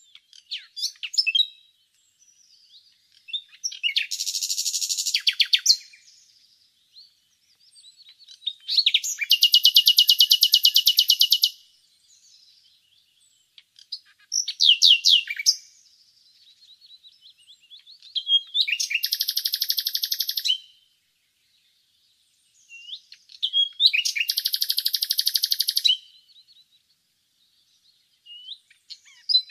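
Common nightingale singing: a string of separate phrases a few seconds apart, several built on fast, loud repeated notes that make rattling trills, others on short whistled notes.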